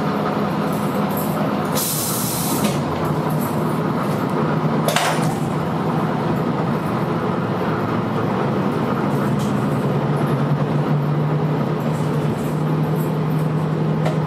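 Diesel railcar running, heard from inside: a steady engine drone with wheel and rail noise, a short burst of air hiss about two seconds in, and a metallic clank about five seconds in.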